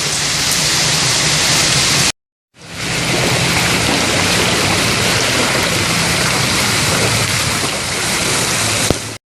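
Heavy rain falling, a steady hiss of water. It cuts out completely for about half a second roughly two seconds in, then comes back.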